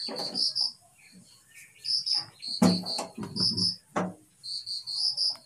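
Crickets chirping in short trills of high, even pulses, repeated throughout. A couple of sharp knocks come about two and a half and four seconds in.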